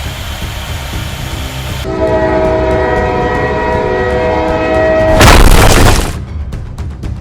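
A steady, pitched horn-like tone of several notes held for about three seconds, cut off by a loud, noisy blast lasting about a second, followed by a few faint clicks.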